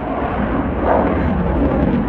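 Dassault Rafale fighter jet's twin Safran M88 turbofan engines, a loud, deep rumbling jet noise as the aircraft flies its display, swelling a little about a second in.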